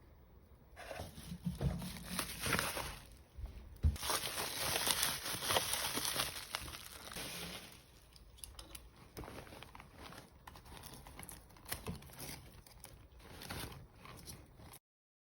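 Packaging crinkling and tearing as it is unwrapped by hand, heaviest for a few seconds in the middle, then lighter rustles and clicks; it stops abruptly near the end.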